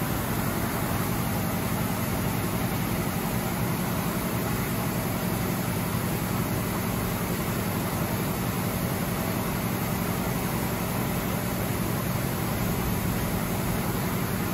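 DMG Mori CTX beta 1250 TC turn-mill centre with a spindle running steadily at about 2,000 RPM: a steady low hum over an even hiss.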